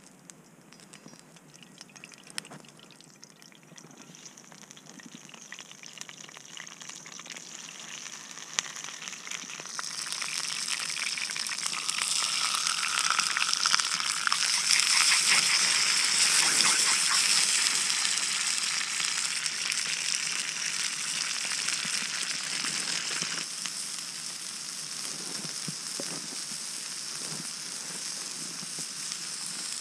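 Food sizzling in a frying pan over a wood campfire. It starts faint, builds over the first ten seconds or so as the pan heats, and is loudest around the middle before settling into a steady sizzle.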